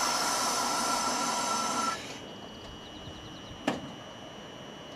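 Chikuho Electric Railway 2000-series tram car 2003 standing with its equipment running: a loud hiss with a few steady whistling tones in it, which cuts off abruptly about two seconds in, then a quieter steady hum and a single sharp clunk near the end.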